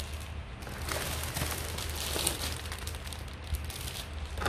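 Plastic bags of fresh vegetables and herbs rustling and crinkling as they are handled and lifted out of a polystyrene box, over a steady low hum.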